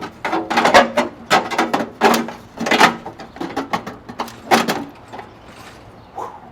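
A run of loud knocks and clatters, several a second, each with a brief ringing tone, dying down near the end.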